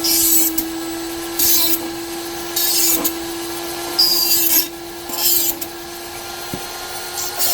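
Flex shaft rotary grinder running at a steady whine, its bit pressed against the work in about six short grinding strokes, roughly one a second.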